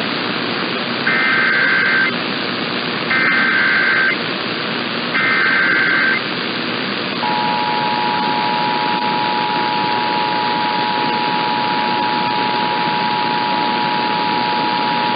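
Emergency Alert System activation over steady radio hiss: three bursts of SAME header data, each about a second long, then the two-tone attention signal (853 and 960 Hz together) starting about seven seconds in and held steady for about eight seconds. Here the tones open the relay of a tornado warning.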